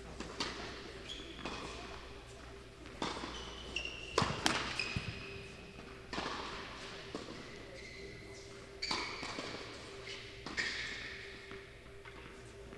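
Tennis rally: a ball struck by rackets and bouncing on the court, a sharp hit every second or two, with short high squeaks after some of the hits.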